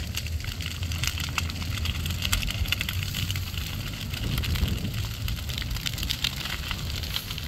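Dry grass burning, with dense, irregular crackling and popping over a steady low rumble.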